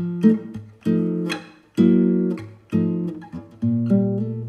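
Background music of gently plucked acoustic guitar chords, each struck and left to fade, roughly one a second, with a low bass note coming in and holding near the end.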